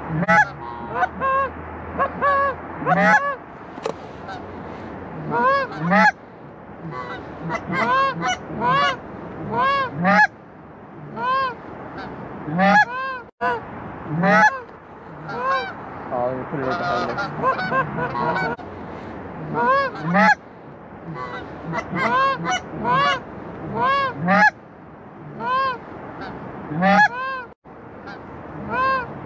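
Canada geese honking: a rapid, overlapping series of short honks and clucks, one or two a second, without a pause.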